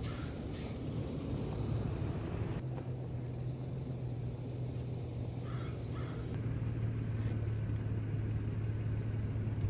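A steady low engine hum with rumble, and a couple of faint short higher sounds about halfway through.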